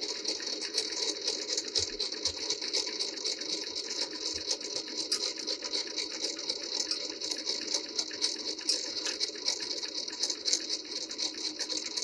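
Linotype machine running, its distributor mechanism giving a steady, dense rattling clatter while the distributor screws turn.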